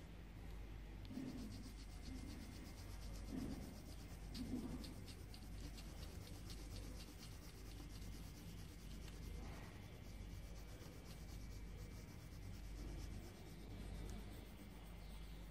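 Light, rhythmic scratching on paper, several strokes a second, like a pencil or fingertip rubbing across a sheet. It stops about ten seconds in, over a faint low hum.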